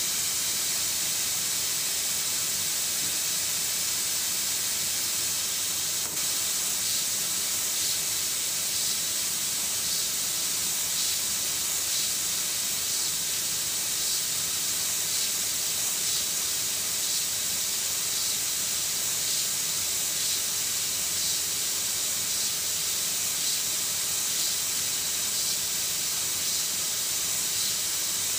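Steady high hiss of gas jetting from a laser drilling head's nozzle onto a thin stainless steel tube, with faint ticks recurring roughly once a second from about seven seconds in.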